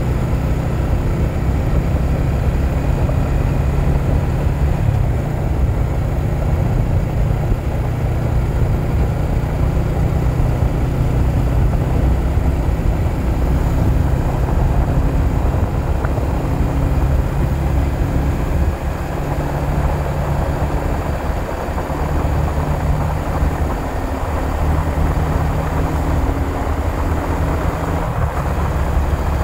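Yamaha R15 V3 motorcycle's 155 cc single-cylinder four-stroke engine running under way, a steady low drone, as the bike picks up speed from about 38 to about 60 km/h.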